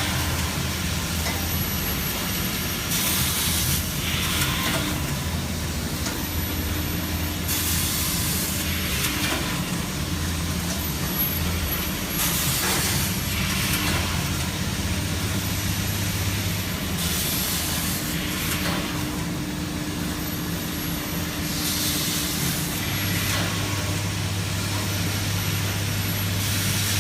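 Laser welding machine for diamond saw blades running with a steady mechanical hum, with a short hiss of air every few seconds.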